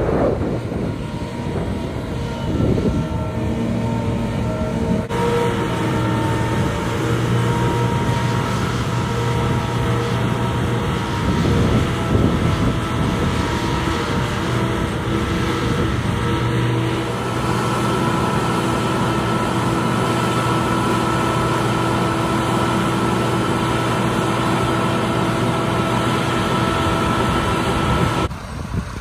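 Engine of a large mobile boat hoist (travel lift) running steadily while it carries a shrimp boat, a low drone with a held whine above it.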